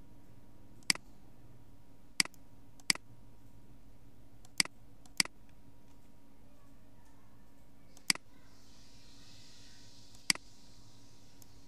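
Computer mouse clicking: seven sharp single clicks at irregular intervals, a second or two apart.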